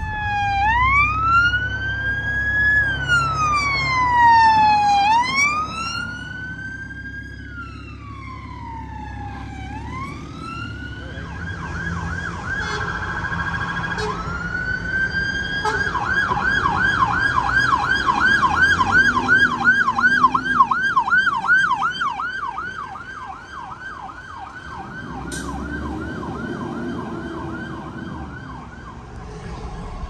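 Emergency vehicle sirens: a slow wail rising and falling over a few seconds each for about the first ten seconds, then a fast yelp repeating about three times a second for the rest, over low traffic noise.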